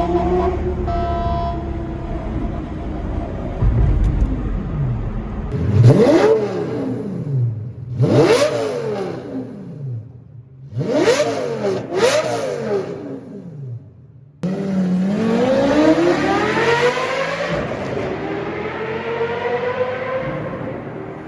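Lamborghini Gallardo Superleggera V10 with an aftermarket F1-style exhaust, echoing in a tunnel. It gives four sharp throttle blips, each rising and dropping within about a second. After a sudden cut comes a longer run up through the revs that falls away slowly.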